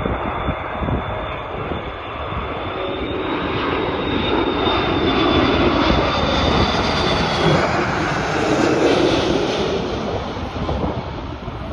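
Airbus A330-300 airliner on landing approach passing low overhead: steady jet engine noise with a thin high whine, growing louder to a peak past the middle and easing off near the end.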